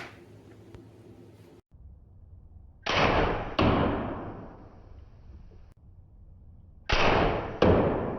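A crossbow discharging with a sharp crack, then a second crack a little over half a second later as the bolt strikes the practice target; the pair comes twice, about four seconds apart, each crack dying away with echo off the basement walls.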